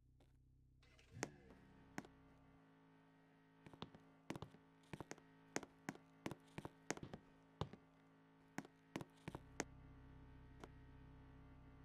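Irregular sharp taps or clicks: one or two early on, then a quick uneven run of about twenty between roughly four and ten seconds in, over a faint steady hum.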